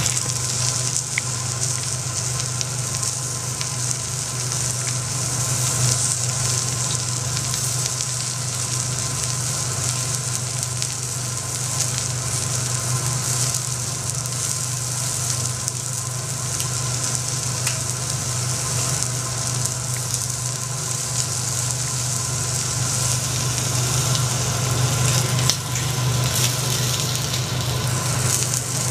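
Food sizzling steadily on a hot teppanyaki iron griddle, an even frying hiss, with a steady low hum underneath.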